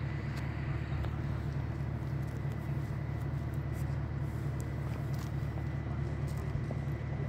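Steady low outdoor rumble, like wind or distant traffic, with a few faint, short clicks.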